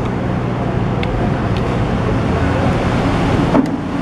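Steady low rumble of road traffic, with one sharp click a little after three and a half seconds in.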